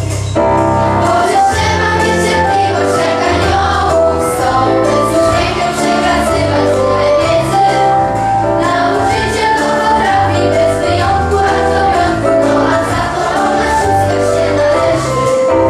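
A group of children singing together, some into handheld microphones, over a recorded backing track with a steady beat and bass line.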